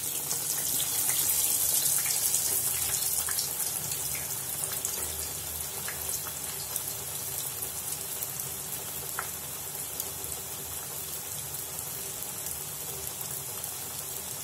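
Two breadcrumb-coated potato tikkis deep-frying in hot mustard oil: a steady hissing sizzle with scattered small pops. It is loudest for the first few seconds as the second patty goes into the oil, then settles to an even level.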